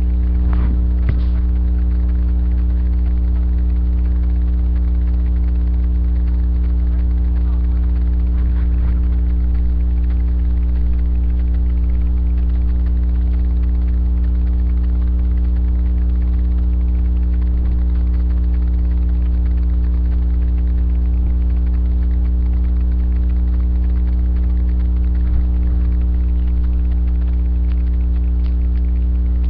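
Loud steady electrical mains hum with a stack of overtones, picked up by a webcam's microphone. A couple of faint clicks come about a second in.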